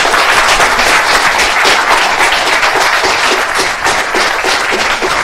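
Audience applauding: many hands clapping together in a steady, dense mass.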